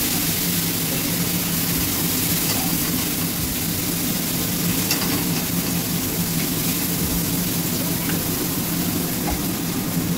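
Tomato, turmeric and cumin paste sizzling steadily in hot oil in a pan as the masala is fried down, with faint scrapes of a spatula stirring it now and then. A steady low hum runs underneath.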